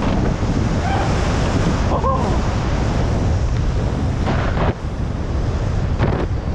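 Wind buffeting a GoPro Hero 9's microphone at skiing speed, a steady low rumble mixed with the hiss of skis running through powder snow. The hiss surges briefly about four seconds in and again near the end, as with turns.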